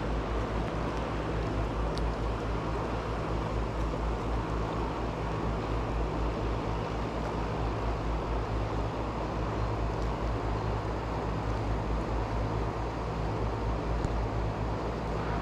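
Mountain stream water rushing steadily, an even hiss and rumble with no breaks.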